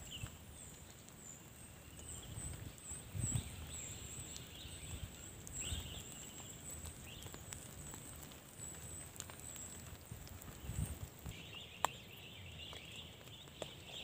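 Pine-forest ambience: a long run of thin, high chirps, repeating a little more than once a second, with a few lower chirps. Under them is a low, uneven rumble that swells twice, and there is one sharp click near the end.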